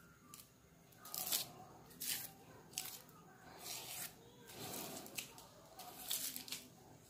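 Thin plastic strips rustling and crinkling in short scratchy bursts, about one a second, as they are handled and twisted by hand into a spinning-top cord.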